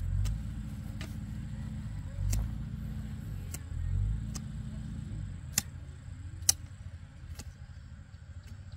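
Hand hoe chopping into dry, loose soil, a sharp knock about once a second. A low rumble swells and fades underneath.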